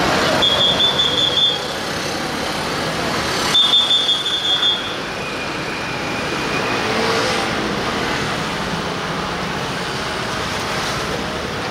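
Steady outdoor street din, with two short shrill high tones about a second long: one just after the start and one around four seconds in.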